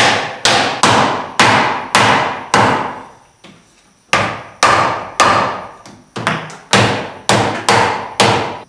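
Repeated hammer blows on the wooden workbench frame, sharp and ringing, about two a second, with a pause of about a second a little before the middle.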